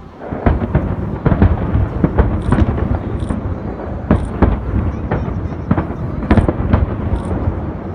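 Fireworks display: a loud barrage of sharp bangs and deep booms that starts abruptly right at the beginning and keeps going, the reports coming several a second over a continuous rumble.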